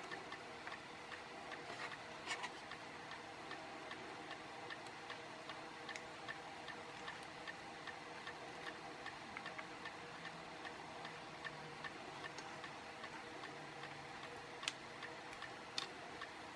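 Faint, steady, even ticking over the low hum of a fan, with a few sharper clicks near the end as flush cutters snip component leads.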